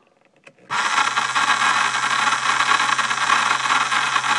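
24-volt gear-reduction e-bike motor switched on with no load, starting abruptly about a second in and running steadily, overvolted to 48 volts, twice its rated voltage.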